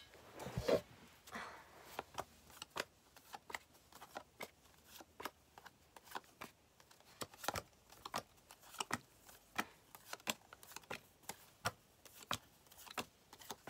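Yu-Gi-Oh trading cards being laid down one at a time on a surface: soft, irregular taps and flicks, roughly one or two a second, with a short rustle of handling about a second in.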